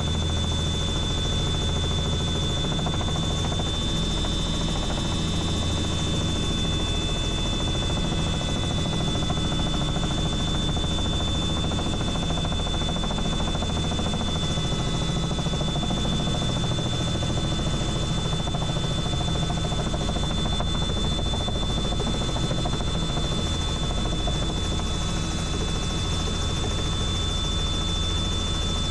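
Helicopter in flight, its rotor and turbine running steadily at a constant level, with a thin high-pitched whine held throughout.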